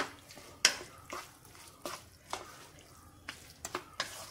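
A spoon knocking and scraping against a cooking pan while a curry is stirred, with several sharp knocks at uneven intervals.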